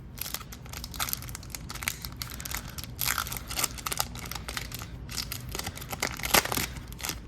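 Wrapper of an Upper Deck hockey card pack being torn open and crinkled by hand, a continuous crackling rustle with sharper crackles scattered through.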